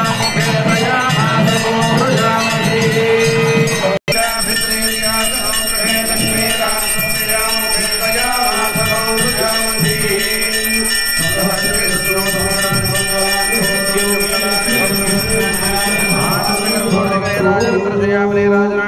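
Hindu temple bells ringing continuously over devotional music during an aarti, with a brief dropout about four seconds in.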